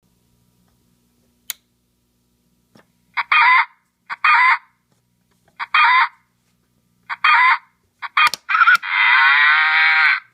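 Wolo electronic animal-sound horn playing a rooster call: a click, then four short calls about a second apart, a quick run of shorter ones, and one long crow.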